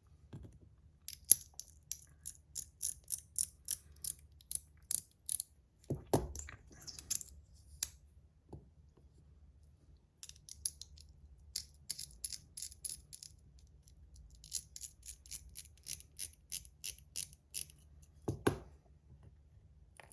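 Small metal Top C fidgets being handled and put back together: runs of quick, sharp metallic clicks, a few per second, broken by two heavier knocks.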